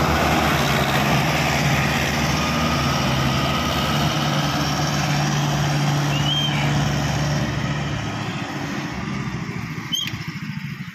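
Mahindra Arjun 555 tractor's diesel engine running steadily under load as it pushes a loaded trailer from behind, growing fainter from about 8 seconds in as it moves away. A sharp click near the end.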